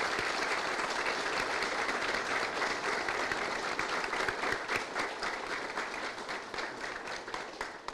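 A group of people applauding, many hands clapping steadily, dying away near the end.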